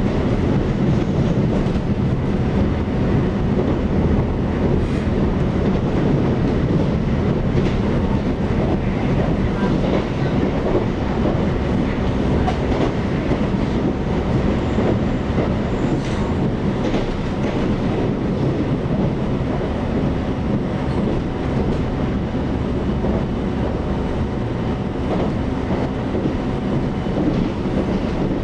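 Taiwan Railways EMU700 electric multiple unit running at speed, heard from inside the carriage: a steady rumble of wheels on rail with a faint steady whine and occasional light clicks.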